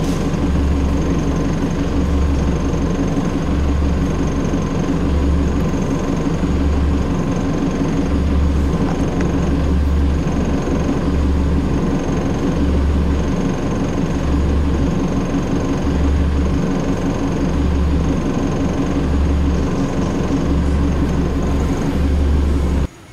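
A vehicle engine running steadily close by, with no revving and a low rumble that pulses about once a second. It cuts off suddenly near the end.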